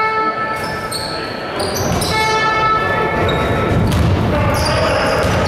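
Basketball game sounds in a large gym: a ball bouncing on the court among players' voices and crowd din. A steady held tone sounds for about a second and a half near the middle.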